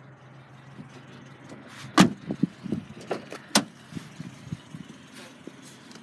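Handling noise from a car's doors and interior: a string of sharp clicks and knocks, the loudest about two seconds in and another strong one about three and a half seconds in, over a steady low hum.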